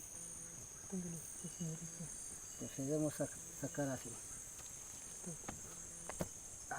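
Steady high-pitched chorus of insects such as crickets, with a few quiet spoken syllables about a second and three seconds in.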